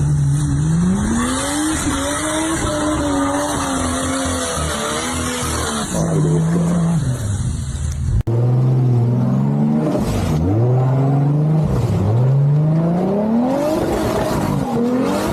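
Off-road 4x4 engines revving up and down again and again, one vehicle and then, after a sudden cut about eight seconds in, another.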